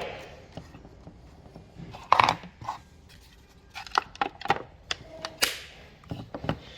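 Scattered clicks and knocks from chainsaw parts being handled and fitted, loudest about two seconds in, with a short scrape about five seconds in.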